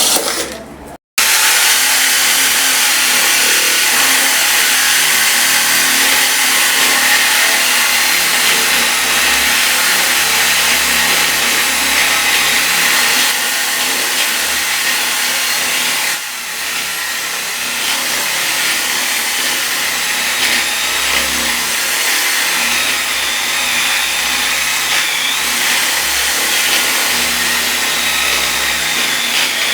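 A loud, steady mechanical noise, like a motor running, broken by a short silent cut about a second in.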